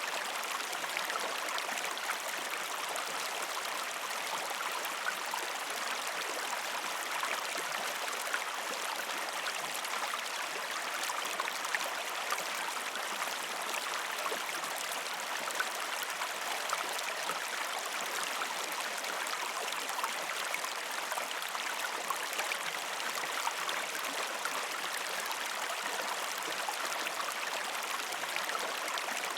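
Shallow river stream flowing steadily over rocks, a constant rushing with many small splashes and gurgles.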